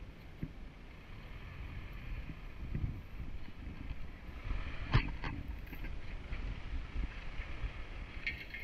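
Heavy machine's diesel engine running steadily, a low rumble, with a single sharp knock about five seconds in.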